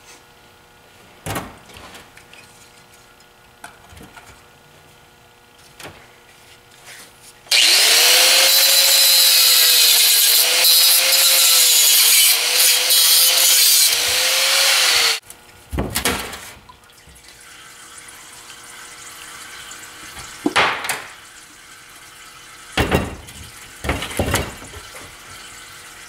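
Angle grinder cutting through the welded seam of an automatic-transmission torque converter shell for about seven seconds. The grinder spins up, and its pitch dips slightly each time the disc bites. Scattered metal knocks come before and after the cut as the converter is handled.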